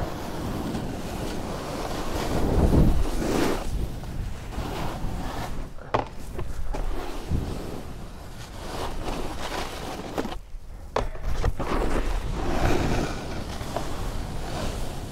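Snowboard carving through groomed snow with a rushing wind, the scraping swelling and fading with each turn. A couple of sharp clicks come about six and eleven seconds in.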